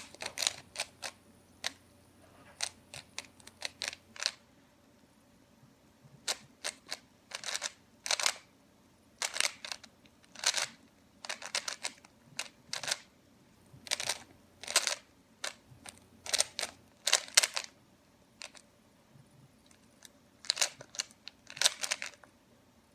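3x3 Rubik's cube being turned by hand during a solve: its plastic layers click and clatter in quick bursts of turns, with a few short pauses between bursts.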